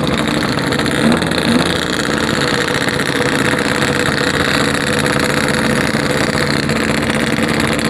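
Yamaha RX-King two-stroke single-cylinder engine running at a steady pace while riding. The rider takes the carburettor for set too rich ("very wet"), which makes it burble at low revs.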